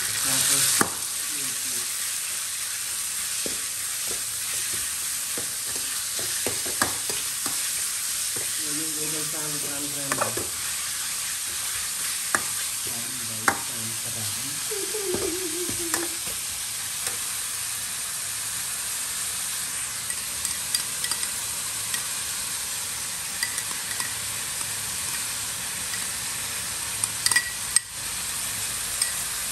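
Sliced meat and chopped garlic sizzling in a hot steel wok while a metal ladle stirs and scrapes through it, with scattered sharp clinks and short squeaks of metal on metal.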